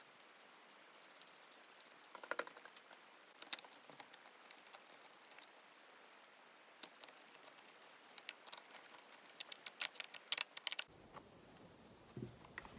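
Faint, scattered clicks and taps of plastic and small tools as the Poulan Woodshark chainsaw's plastic air box is brushed clean and fitted back on with a screwdriver, busiest shortly before the end.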